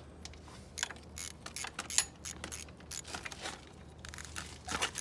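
Irregular metallic clicks and scrapes of the engine oil drain bolt being threaded back in and handled with a socket tool, with one sharper click about two seconds in.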